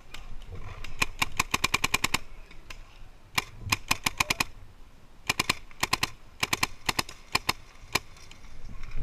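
Paintball marker, an electronic Planet Eclipse Etek5, firing rapid strings of sharp pops: a run of about a dozen shots about a second in, then several shorter strings of a few shots each.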